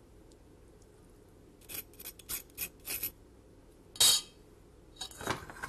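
Metal spoon scraping against stainless steel cookware as cooked orzo is scraped into a steel mixing bowl and stirred: a run of short scrapes starting about a second and a half in, one louder scrape about four seconds in, and more scraping near the end. It is a terrible scraping noise.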